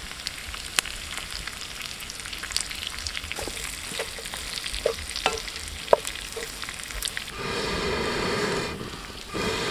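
Sliced onions sizzling in coconut oil in a frying pan, with scattered crackling pops. About seven seconds in, and again near the end, louder stretches of stirring as the onions are turned with a wooden spatula.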